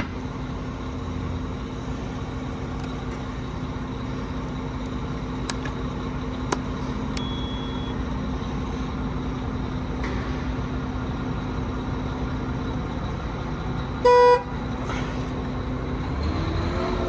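Mack MP8 diesel truck engine running steadily while driving the concrete pump kit, with a few sharp clicks. About fourteen seconds in there is one short, loud horn blast, and near the end the engine speed starts to rise.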